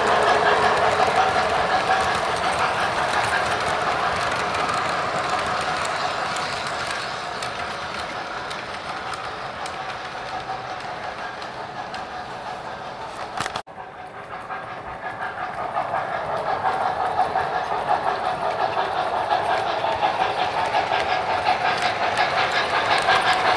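MTH RailKing O-gauge Alaska Railroad 0-6-0 model steam switcher and its freight cars running on three-rail track, a steady hum over a rattle of wheels on rail. It fades as the train moves away, breaks off abruptly about halfway through, then grows louder again as the train comes back toward the microphone.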